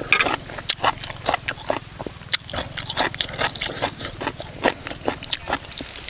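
A person chewing and crunching a mouthful of cucumber salad, with irregular crunches and wet smacks several times a second.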